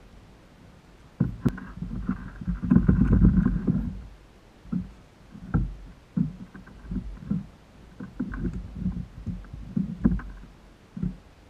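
Irregular knocks and bumps on the plastic hull of a Wilderness Systems Tarpon 120 sit-on-top kayak, with water lapping against it as a fish is handled on deck. A louder, longer rumbling stretch comes about two to four seconds in.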